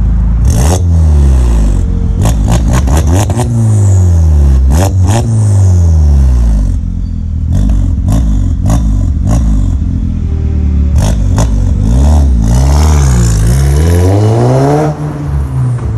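Skoda Octavia Scout's turbocharged engine through a tuned exhaust with a stainless-steel section and twin tailpipes, revved up and down again and again with several sharp cracks between the revs, then accelerating away near the end.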